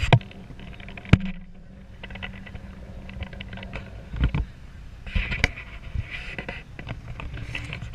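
A car engine idling, a steady low hum that drops away about halfway through. There are scattered knocks and clicks, with one sharp knock about a second in.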